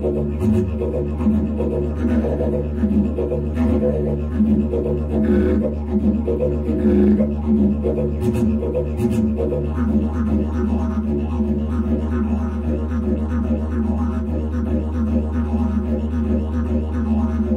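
Background music: a didgeridoo playing a steady low drone with a rhythmic pulsing above it.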